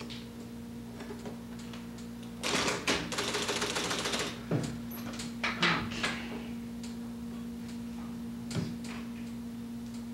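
Typewriter keys clacking: a quick run of typing about two and a half seconds in, then scattered single keystrokes, over a steady low hum.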